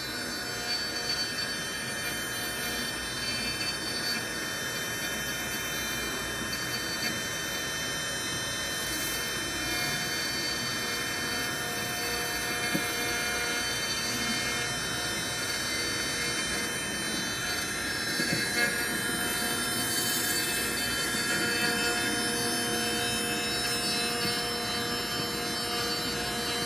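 Desktop 5-axis CNC engraver milling a dental model: the spindle runs at speed while a small end mill cuts the clear plastic blank. Steady whine made of several constant tones, with small irregular cutting ticks.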